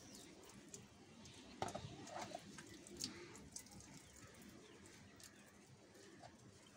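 Near silence: quiet outdoor ambience with a few soft taps and a faint bird call about two seconds in.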